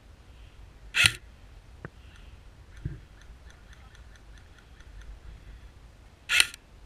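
A scoped airsoft rifle firing two short, loud shots, about a second in and near the end. Between them comes a run of faint, quick ticks, about five a second.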